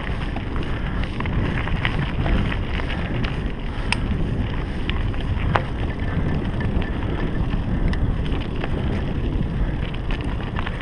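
Mountain bike riding a dirt woodland singletrack: wind buffeting the camera microphone over a steady tyre rumble, with frequent small clicks and rattles from the bike.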